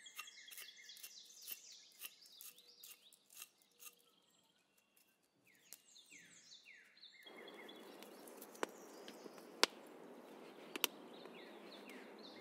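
Faint birdsong: a small bird's quick runs of falling chirps. About seven seconds in, a wood campfire's crackle comes in, a steady hiss with a few sharp pops, while the birds keep singing.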